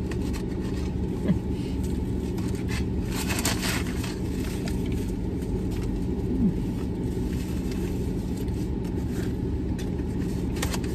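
Steady low rumble and hum of a car idling, heard from inside its cabin. Food packaging rustles briefly, mostly about three to four seconds in.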